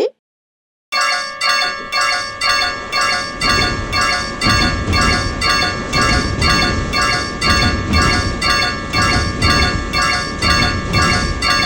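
Railroad crossing warning bell (the Japanese 'kan-kan' alarm) starting about a second in and ringing steadily at about one and a half strikes a second. A low rumble builds beneath it a few seconds later.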